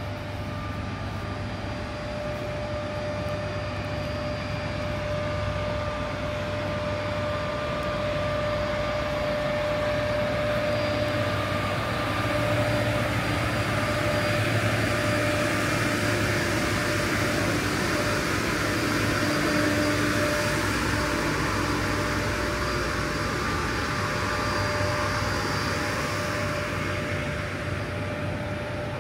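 Steady mechanical engine drone over a constant hum, swelling gradually to its loudest around the middle and easing off near the end.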